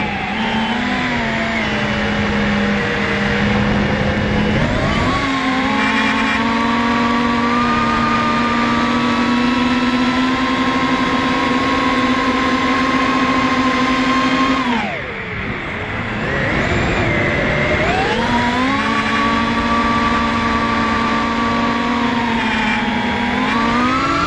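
FPV quadcopter's brushless motors and propellers whining at high throttle, the pitch holding steady, then falling and climbing back as the throttle is eased off and opened up, with a longer dip a little past halfway.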